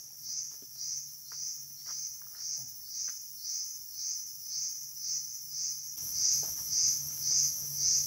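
An insect chirping in steady high-pitched pulses, about two a second, with a few faint clicks in the first few seconds. The chirping gets louder about six seconds in.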